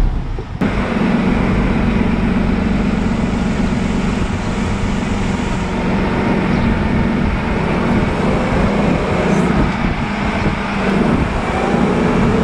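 Expedition truck under way, heard from inside the cab: a steady low engine drone under even road and wind noise.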